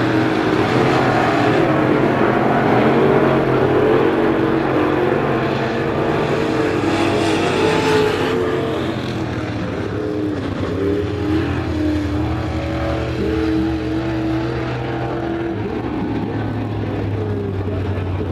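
Crate late model race cars' V8 engines running at speed, their pitch rising and falling as the cars pass, louder in the first half and then easing off a little.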